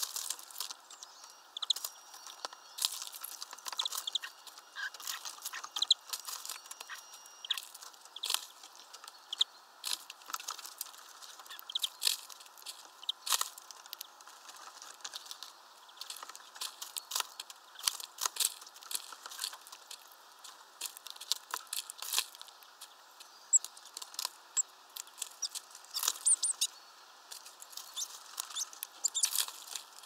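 Small birds (European greenfinch and great tits) at a shallow plastic tub of water: irregular taps, pecks and splashes as they drink and bathe, with a few short high chirps.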